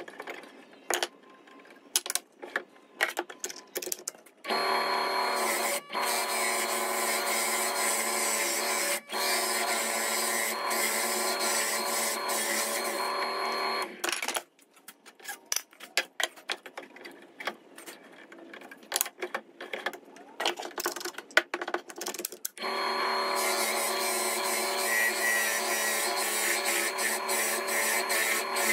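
WEN benchtop drill press motor running while a Forstner bit bores into stacked plywood, in two steady stretches: one starting about four seconds in and stopping about halfway, the other starting again about three quarters of the way through. Between them, and at the start, there are scattered clicks and knocks of handling.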